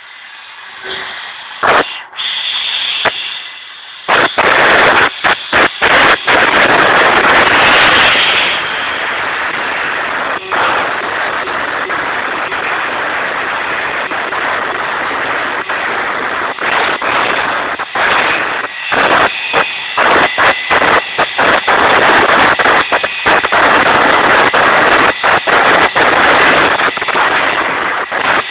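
Homemade CNC router's spindle running and cutting, a loud, rough, steady noise with many brief dropouts. It is lighter for the first few seconds and grows loud about four seconds in.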